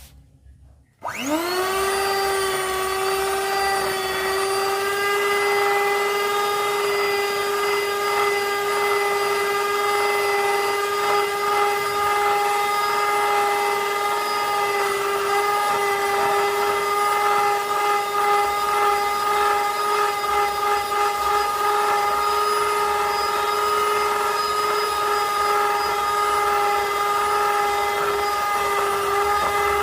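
Electric drill-type mixer starting up about a second in. Its whine rises quickly, then it runs at a steady pitch while stirring wall putty with colour.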